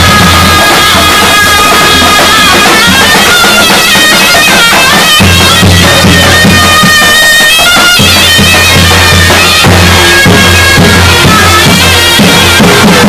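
Zurna (Turkish double-reed shawm) playing a loud, held, wailing melody over the steady beat of a davul bass drum.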